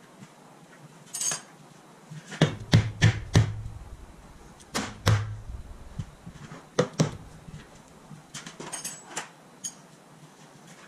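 Rubber shot-filled dead-blow hammer striking a lower control arm to seat it into place: dull thuds, a quick run of four, then two more, then a couple of lighter knocks.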